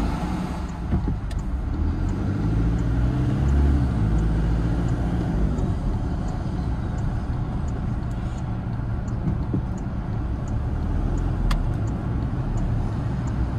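Toyota Hilux pickup being driven, heard from inside the cabin: a steady engine hum and road noise. A faint, regular turn-signal tick sounds about every two-thirds of a second from a few seconds in.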